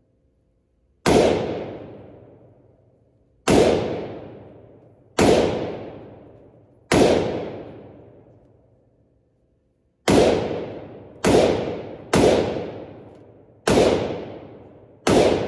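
Nine 9mm pistol shots fired one at a time at an uneven pace, about one to two and a half seconds apart, each ringing off in the long echo of an indoor shooting range.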